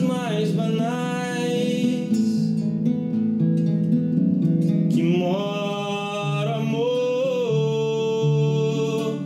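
A man singing two long, held phrases over an acoustic guitar. The first phrase slides up at the start and holds; the second begins about halfway through and holds to the end.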